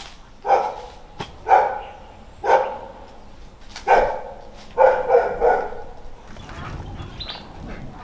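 A dog barking in short, sharp barks, about one a second at first, then a quick run of three barks near the middle, after which it stops.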